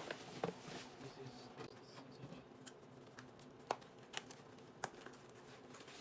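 Faint rustling and crinkling of plastic wrapping and cardboard packaging being handled, with a few sharp clicks.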